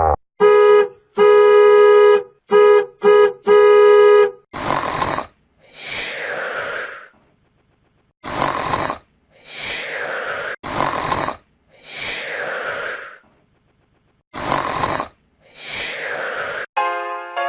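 Comedy sound effects: four honks of a horn, the second one long. Then a cartoon snore repeats four times, each a short rough in-breath followed by a longer breathy out-breath that falls in pitch. Piano notes begin near the end.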